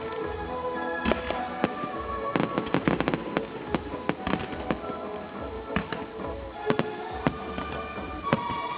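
Fireworks going off over music: single bangs scattered throughout, with a quick run of rapid crackling reports about two and a half seconds in.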